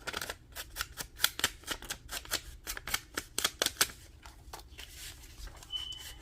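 Scissors snipping paper: a run of short, crisp snips and clicks at an irregular pace of a few a second, with a brief high squeak near the end.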